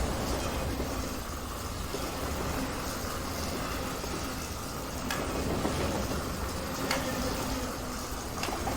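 Toy train running along its track: a steady running noise, with a few sharp clicks in the second half.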